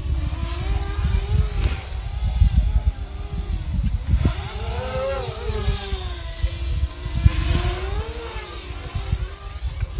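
Whine of a Hubsan X4 H107L micro quadcopter's small electric motors and propellers as it flies, the pitch rising and falling with throttle. A heavy low rumble of wind on the microphone lies under it.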